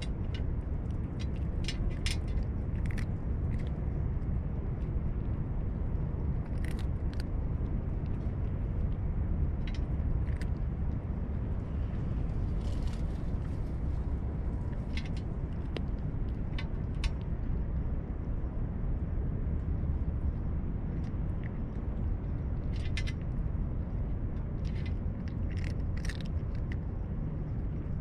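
A cat chewing and crunching small pieces of food from a metal tray, in short irregular clusters, over a steady low background rumble.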